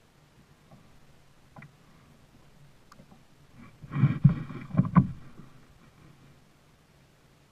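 A cluster of loud knocks and thumps about four seconds in, lasting around a second, over a faint steady low hum.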